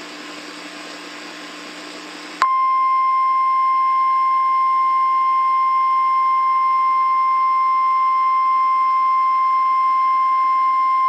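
About two seconds of hiss, then a 1050 Hz emergency alert attention tone (the single-pitch NOAA Weather Radio–style alert tone). It cuts in suddenly, is the loudest sound, and holds steady at one pitch, announcing an emergency broadcast message.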